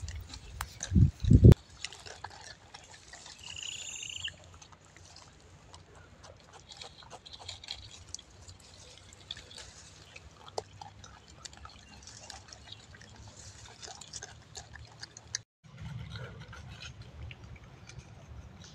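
Faint rustling of a bush with scattered crackles and clicks of leaves and twigs as gray langurs pull at branches to feed. Two heavy low thumps come about a second in, and a brief high call sounds around three to four seconds in.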